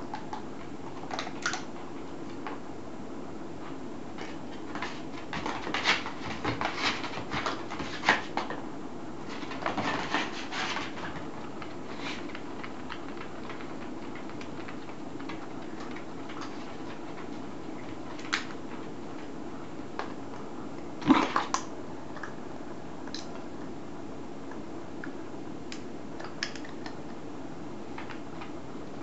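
Light clicks and taps of a ping-pong ball and shelties' paws on tatami as the dogs scramble after the ball, coming in irregular clusters, with the loudest knocks about two-thirds of the way through. A steady low hum lies underneath.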